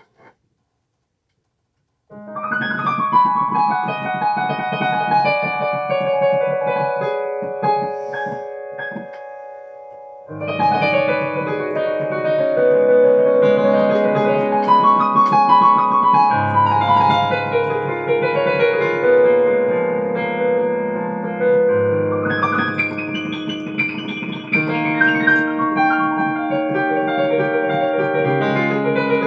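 Piano music, starting about two seconds in after a moment of silence. It thins out for a few seconds around the middle and comes back fuller.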